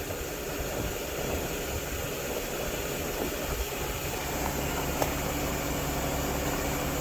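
Steady machine hum from a running milling machine, with a single faint click about five seconds in.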